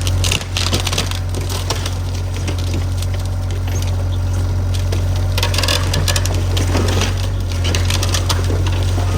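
Burning lumber from a demolished cabin on a large burn pile: wood crackling, popping and splintering in many sharp snaps over a steady low rumble.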